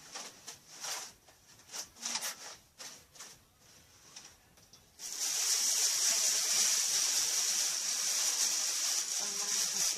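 Faint rustling and handling noises, then a steady hiss that starts suddenly about halfway through and carries on.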